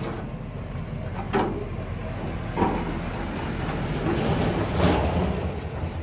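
Scraping and scuffing of plastering tools: a hand trowel working mortar and a brush against the wall. There are a few sharper scrapes, about a second and a half, two and a half and five seconds in, over a steady low rumble.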